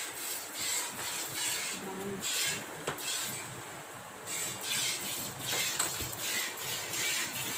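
Buffalo being hand-milked: jets of milk hissing into a steel pail in rhythmic spurts, one squeeze after another.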